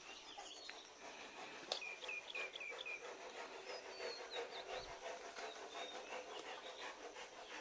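Small birds chirping: a quick run of five chirps about two seconds in and thin whistled notes a little later, over faint outdoor background, with one sharp click just before the chirps.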